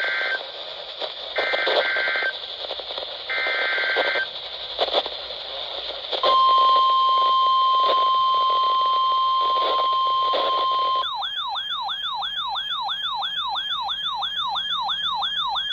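Emergency Alert System SAME header received over the radio: three short bursts of screeching digital data tones, then the steady single-pitch warning alarm tone of NOAA Weather Radio for about five seconds, announcing a severe thunderstorm warning. A fast warbling alert tone sweeping up and down about three times a second follows, then cuts off abruptly, with radio hiss underneath throughout.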